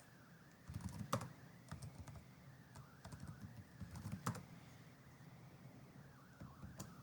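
Faint typing on a computer keyboard: a run of irregular key clicks for about four seconds, then a pause with a couple more keystrokes near the end.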